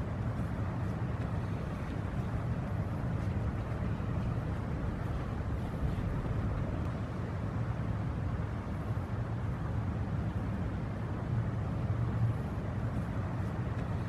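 Inland cargo ship's diesel engine running as the vessel passes: a steady low hum over an even background rush.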